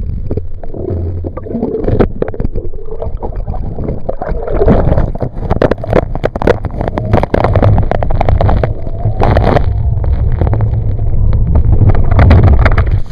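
Loud rushing and splashing of water over a camera mounted on a slalom water ski, with a deep rumble and many short splashes as the ski cuts through the wake and the camera dips under the surface and comes back out.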